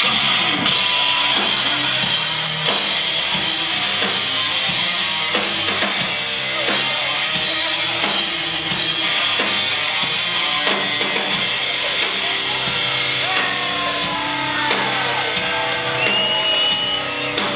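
Hard rock band playing live and loud: electric guitars over a drum kit, with sliding high notes in the second half.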